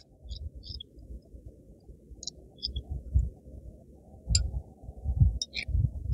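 Sparse light clicks and ticks with soft low bumps: hands handling a small square of plastic drainage mesh at a bonsai pot.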